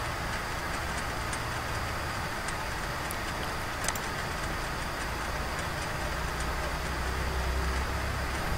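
Steady low background hum and hiss, with a few faint clicks, the clearest about four seconds in.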